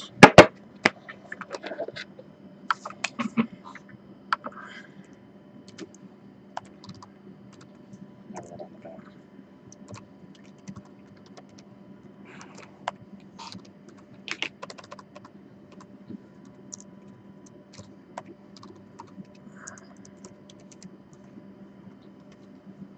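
Typing on an Acer laptop keyboard: irregular keystrokes in short runs, over a faint steady hum.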